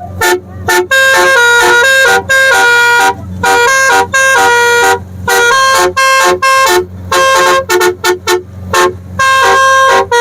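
Telolet Basuri musical horn sounding a tune, a loud run of short clipped notes broken by longer held notes.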